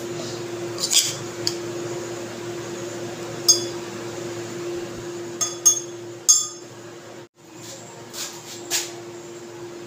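Several light clinks on a drinking glass as chopped mango pieces are spooned into it, over a steady low hum.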